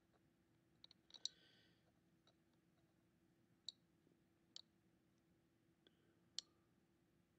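Faint, irregular sharp clicks, about a dozen scattered unevenly, over a steady low hum of room tone, with a brief soft hiss just after the first second.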